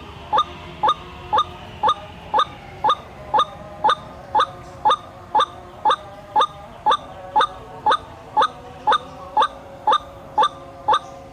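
White-breasted waterhen (ruak-ruak) lure call: a short rising note repeated very evenly, about twice a second.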